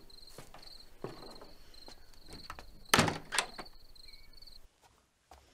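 Crickets chirping steadily in a film soundtrack, with soft knocks and two heavy thuds about three seconds in, the first the louder. The sound drops away almost to nothing near the end.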